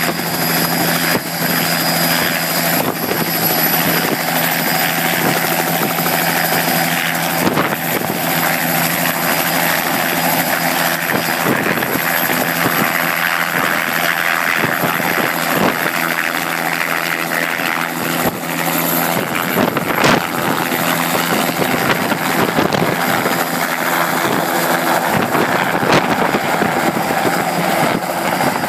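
Bell 206 JetRanger turbine helicopter at full rotor speed, lifting off into a low hover and turning away: a steady rotor thrum with a high, thin turbine whine above it.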